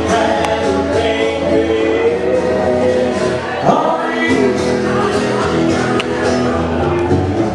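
Music with singing, several voices over guitar and a steady low bass line.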